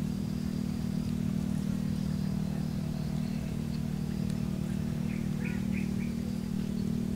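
Steady low hum, with a few faint bird chirps about five seconds in.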